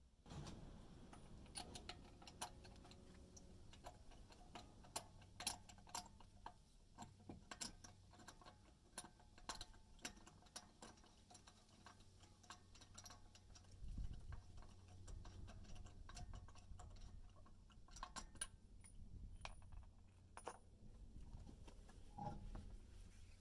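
Faint, irregular clicking of a socket ratchet wrench working the lug nuts off a car wheel, with a few sharper metal taps.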